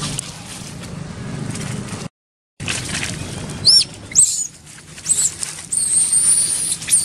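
Baby macaque squealing: several short high-pitched squeals about halfway through, then one long high squeal near the end.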